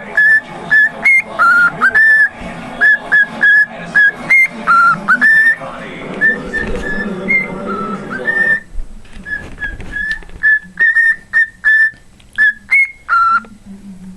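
Cockatiel whistling a tune: a long run of short, clear notes, mostly on one repeated pitch, with occasional lower notes and quick upward flicks.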